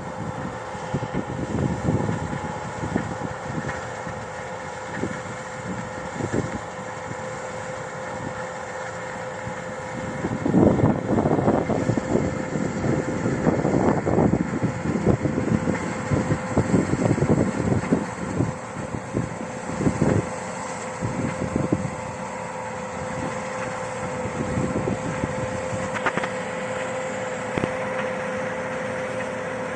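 Combine harvester running steadily in the field, a constant drone with a steady whine. Irregular gusts of louder rumbling noise come through the middle stretch.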